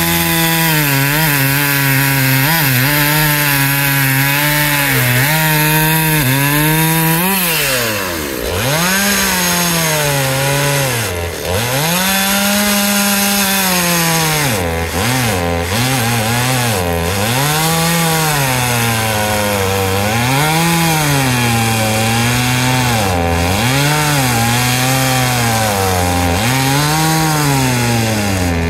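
Gasoline chainsaw cutting through a log. The engine pitch sags and recovers over and over as the chain bites into the wood, with a short break about eight seconds in before the cutting goes on.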